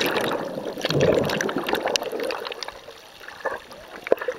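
Seawater rushing and splashing close by, loud for about the first two seconds, then dying away to small splashes and drips.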